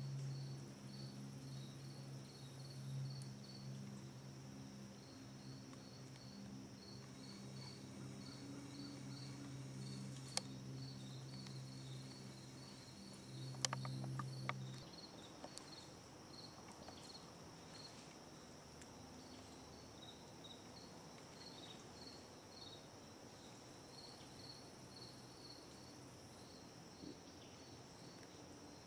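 Crickets chirping faintly: a steady string of short high chirps over a constant higher insect buzz. A low hum runs underneath and stops about halfway through, with a few sharp clicks just before it ends.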